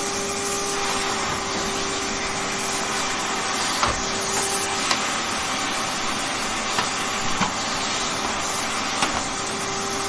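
Vacuum cleaner running steadily, an even noise with a faint steady hum in it. A few short, sharp clicks come through at intervals.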